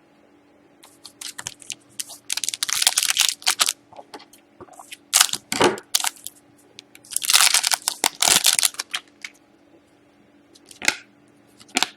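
Trading cards and plastic being handled and shuffled by hand: bursts of crinkling and rustling with small clicks, heaviest about two to four seconds in and again around seven to nine seconds in.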